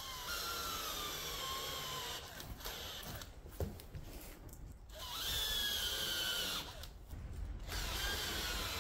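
Cordless drill driving screw-in tire studs into the rubber knobs of a tractor tire. The motor whines in three runs, and in the first two the pitch falls as each stud is driven in.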